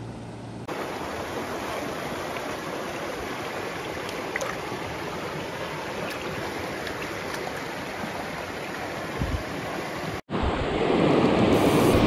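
Creek water running steadily over rocks. A brief break about ten seconds in gives way to a louder rush of white water.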